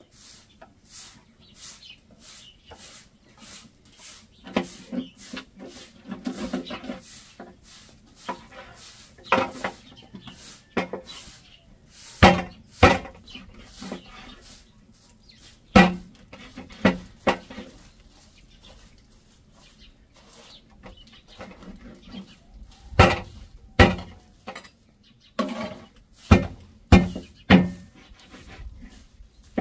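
Meat cleaver chopping a raw whole chicken into pieces on a wooden cutting board set on a metal tray: single sharp chops in irregular bursts, the heaviest in the middle and the last third, with lighter knocks and handling in between.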